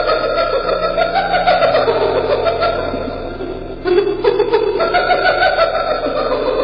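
Hyena giggling, a rapid, fluttering laugh-like call in two long bouts with a short break about four seconds in, over background music.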